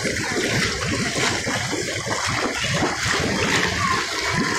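Pool water rushing and splashing steadily as a child wades through it.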